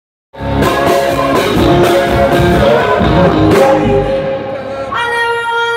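Live rock band playing loudly: drums, electric guitar and bass under a female lead singer. The drums drop back around four seconds in, and near the end the singer holds one long sustained note.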